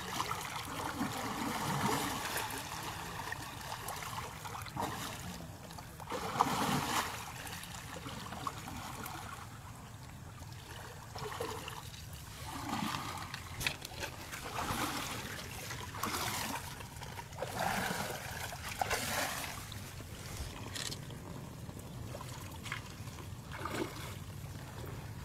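An Asian elephant wading through a shallow river, water sloshing and splashing around its legs in uneven surges as it steps toward the bank.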